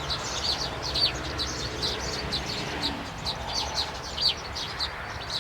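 Maya birds (munias) chirping: a constant stream of short, high, falling chirps, several a second, over a low steady hum.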